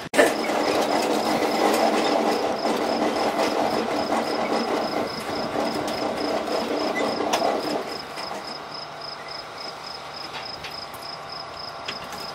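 Small railroad motorcar engine running steadily, dropping noticeably lower about eight seconds in, with occasional sharp metal clanks.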